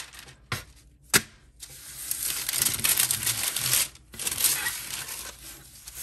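A thin sheet peeled back and crinkled as a cured epoxy resin casting is handled, with two sharp knocks in the first second or so, then long stretches of rustling and crackling.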